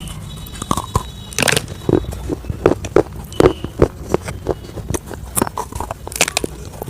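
Crunchy fried chicken nuggets being bitten and chewed: irregular crunches and crackles, several a second.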